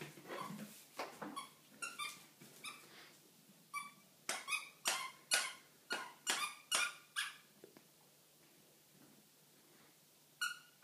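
Puppy yapping in play: a quick run of about a dozen short, high yips over the first seven seconds, with one more near the end.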